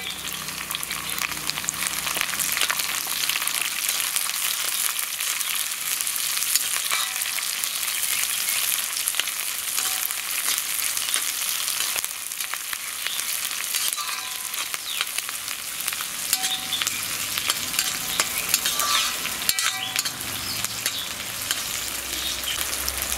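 Sliced shallots, ginger and coconut pieces sizzling and crackling in hot oil in a kadai, stirred now and then with a steel ladle that scrapes and clicks against the pan.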